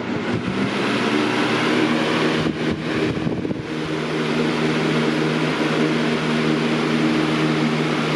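Galaxy box fan model 4733 running on high, spinning up over the first second or so into a steady rush of air over a motor hum. A few soft knocks come about three seconds in.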